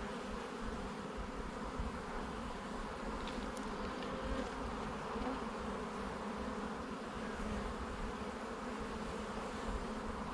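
Steady buzzing hum of many honeybees from an open hive.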